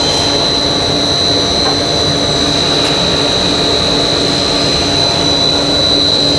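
High-speed blown film extrusion machine running: its air blower and motors make a steady rushing hum with a constant high whine over it.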